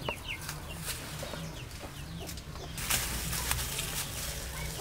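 Chickens clucking and small birds chirping, with plastic rustling as the bag around a guava on the tree is handled in the last part.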